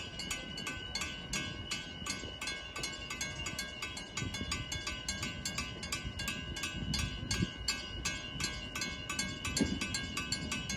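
Level crossing warning bell ringing with fast, even strikes, about four or five a second, over a low rumble that grows a little louder in the second half.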